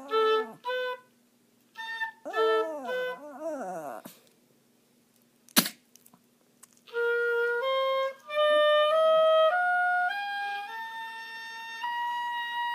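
Oboe playing short notes while a dog howls along in falling, wavering cries. A sharp click comes near the middle. Then the oboe plays a slow rising scale of held notes.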